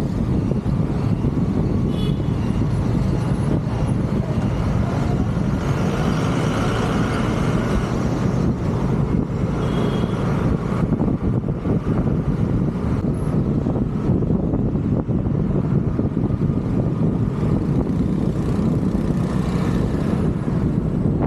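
Motor scooter riding through city traffic: a steady rumble of engine, tyres and rushing air, with other vehicles passing close by.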